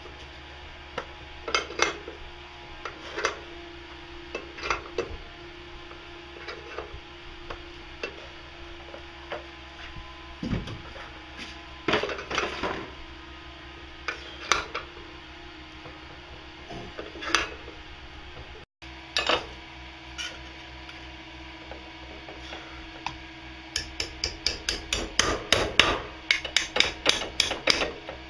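Scattered metal clinks and knocks from stainless steel stock being worked in a bench vise, then near the end a quick run of sharp metal-on-metal taps, about four a second. A steady hum runs underneath.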